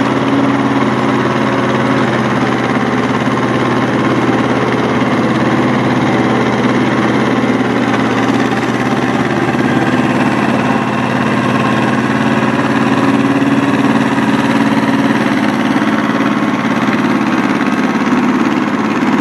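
Goldoni 926 compact tractor engine running steadily under load, driving a rotary tiller through its PTO shaft as the tiller churns the soil.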